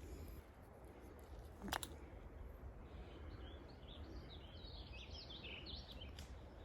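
Faint birdsong: a run of quick, high chirps starting about three seconds in, over a low steady rumble, with a single sharp click a little earlier.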